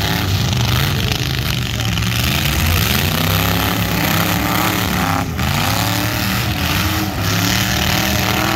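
Demolition derby cars' engines revving up and down over a continuous loud roar of several motors.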